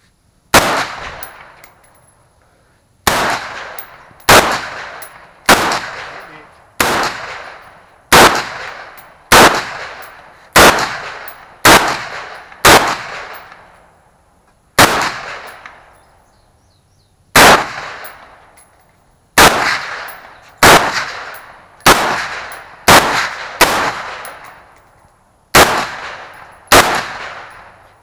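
AR-15 rifle in .223/5.56 fired semi-automatically: about nineteen single shots, most roughly a second apart with a few longer pauses, each sharp crack trailing off in echo.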